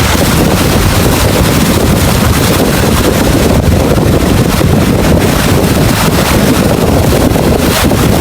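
Strong wind blowing hard across the microphone, a loud, steady rumbling noise, over heavy seas.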